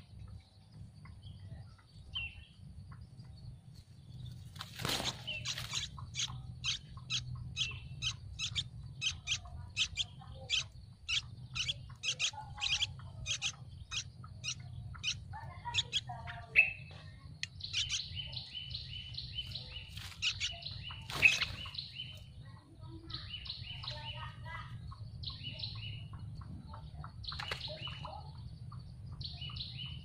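Yellow-vented bulbul nestlings begging for food. A rapid run of short, sharp, evenly spaced calls, about two a second, gives way about two-thirds of the way through to bursts of quicker chattering calls. Two sharp snaps stand out, one early and one later, over a steady low hum.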